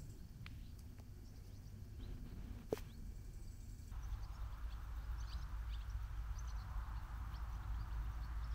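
Outdoor background: a low rumble of wind on the microphone and scattered short bird chirps, with a single sharp click a little under three seconds in.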